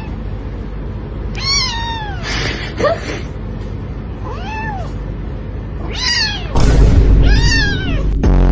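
Kitten meowing repeatedly, about five short high-pitched meows each rising and falling in pitch. A loud low rumble of handling or rustling noise comes about two-thirds of the way through.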